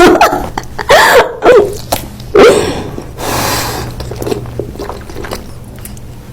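Close-miked eating and mouth sounds: several loud bites and mouth noises with short hummed vocal sounds in the first few seconds, then a softer hissing stretch, like a pour, around the middle, and quieter mouth sounds after.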